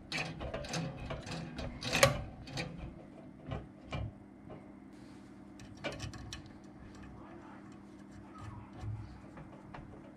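Irregular small metal clicks and taps as fingers handle the valve fittings on a Wilesco D145 model steam engine, the loudest about two seconds in, over a steady low hum.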